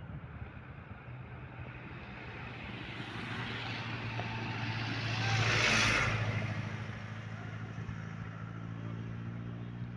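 A motor vehicle driving past close by. Its engine and road noise build to a peak about six seconds in and then fade, over a steady low engine hum.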